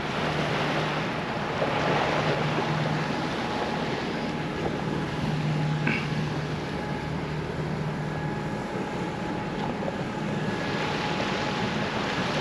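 A sailboat's inboard diesel engine running steadily under way, a constant low hum under a steady rushing hiss of water and air.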